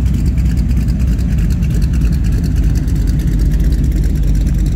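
Steady low rumble of car engines moving at low speed.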